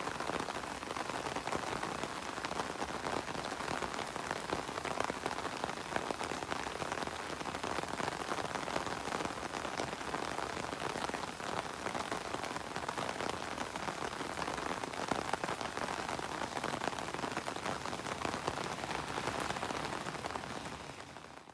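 Heavy rain falling steadily: a dense, even hiss of countless drops. It fades out near the end.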